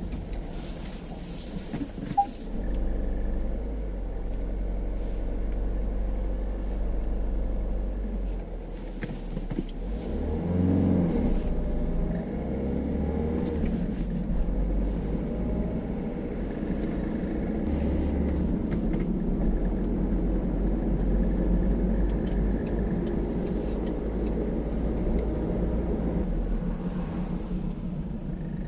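Cabin sound of a 2012 Peugeot 308 SW diesel driving: steady engine and road rumble, with the engine note rising and falling about ten seconds in. A faint intermittent squeak comes and goes; the owner first suspected the clutch, but it was traced to a loose plastic air deflector in the front left wheel arch.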